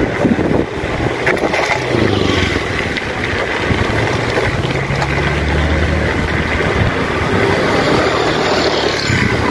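Motor scooter traffic on a narrow street: a steady engine hum that grows stronger about four seconds in, over a continuous noisy background.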